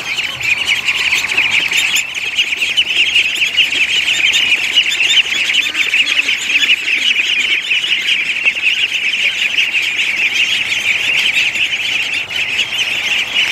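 A crowd of ducklings peeping constantly, many high chirps overlapping at once, with a few lower calls from the adult ducks and geese.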